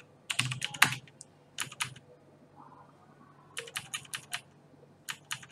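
Computer keyboard being typed in short runs of keystroke clicks, with pauses between the runs.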